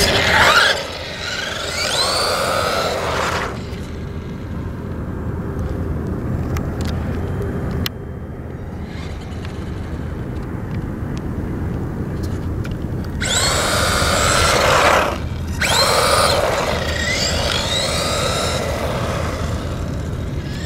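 HPI Mini Recon electric RC truck running on asphalt, its motor and gears whining up in pitch as it accelerates in several runs: one at the start, then again from about two-thirds of the way through, with a short break near the end. A steady low rumble lies underneath, and the middle stretch is quieter.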